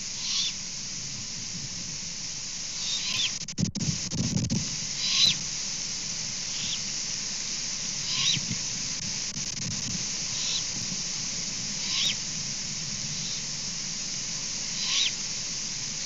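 Juvenile great horned owls giving about ten short, raspy, high-pitched begging screeches, one every second or two, over a steady hiss. A knock and a low rumble about four seconds in.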